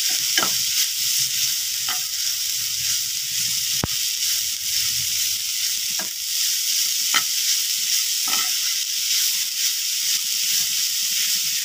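Ground coconut masala sizzling in hot oil in a nonstick pan, frying until its raw smell cooks off. A steel spoon stirs and scrapes it, with a few sharp clicks where the spoon knocks the pan.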